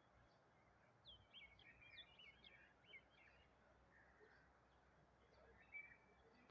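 Faint bird chirps: a quick run of short high chirps about a second in, and another brief chirp near the end, over near silence.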